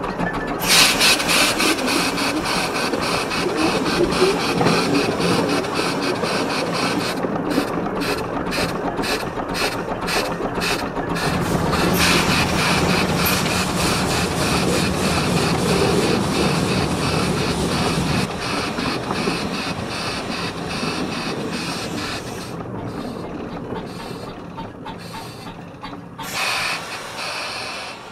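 Narrow-gauge steam locomotive running, a steady hiss and rattle of steam and motion, with evenly spaced exhaust beats about three a second for a few seconds in the middle. The sound slowly fades towards the end, broken by a short louder rush near the end.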